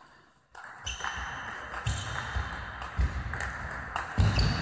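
Table tennis rally: the ball clicking sharply off the rackets and the table, a hit roughly every half second. It begins about half a second in, and each hit rings briefly in the hall.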